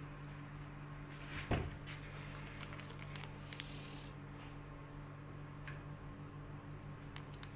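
Paper tea-bag sachets rustling and clicking as a hand rummages through a plastic tub of them, with one louder knock about a second and a half in. A faint steady low hum lies underneath.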